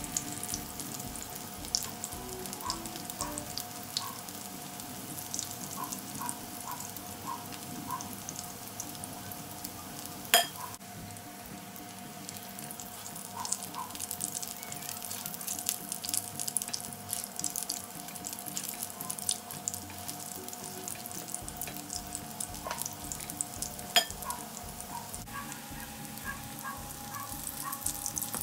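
Potato hash brown patties sizzling and crackling as they shallow-fry in oil in a nonstick pan. Two sharp knocks stand out, one about ten seconds in and one late on.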